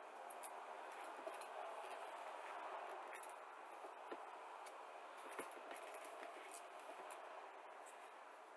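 Quiet room hiss with a few faint clicks and light rustles of small airbrush parts and packaging being handled.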